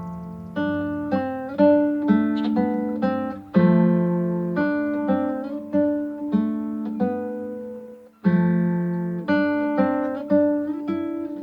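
Acoustic guitar music: plucked notes and chords, each struck sharply and ringing out, with a brief break about eight seconds in.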